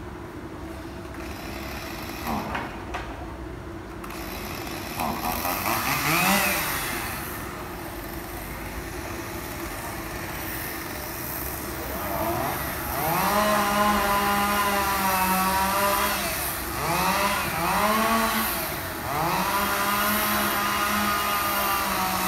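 A power tool's motor spinning up and down once, then three times revving up to a steady whine and holding it for a few seconds, dropping off briefly between runs.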